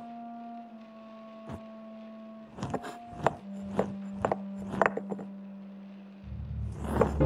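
Light taps and knocks on wooden floorboards, about a dozen, scattered and uneven, over soft held music notes. A deeper music swell comes in near the end.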